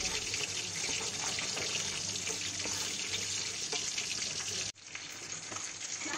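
Fried curry spice paste sizzling in oil in a pot as coconut milk is stirred in, with a steady hiss and light clicks of the spoon. About three-quarters of the way through it cuts off abruptly and a fainter hiss follows.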